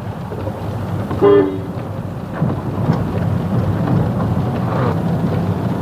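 Steady low rumble of a Honda i-VTEC car driving, heard from inside the cabin, with no brake grinding to be heard. A short horn-like tone sounds about a second in.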